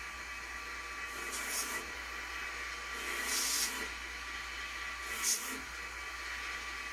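Short hissing strokes, about one every two seconds, four in all, as a gun's lock spring is cleaned, over a faint steady hum.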